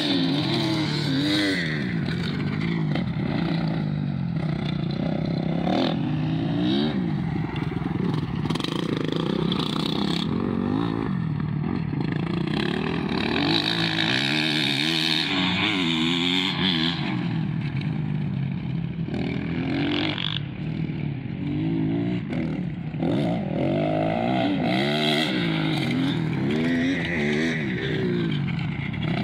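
Dirt bike engines revving up and down on a motocross track, the pitch rising and falling again and again with throttle and gear changes.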